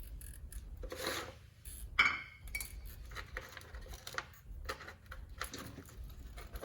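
Metal parts and tools clinking and knocking while a truck's front wheel hub is put back together, with one sharp ringing metal strike about two seconds in.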